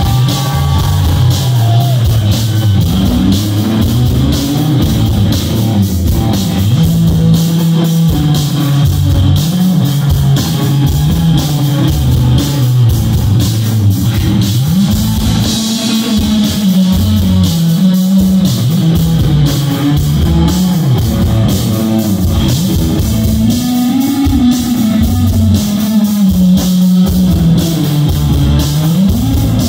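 Live rock band playing an instrumental stretch with no singing: electric guitars over bass and drum kit.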